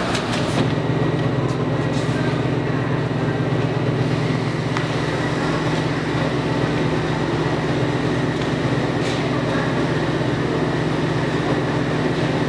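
Steady low hum and rumble of commercial laundromat washers and dryers running.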